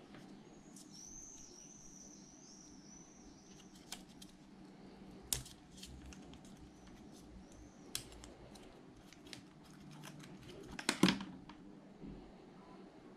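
A white plastic USB-C charge cable being coiled and handled: its plugs and loops click and rattle a few times, with the loudest cluster of clicks about eleven seconds in.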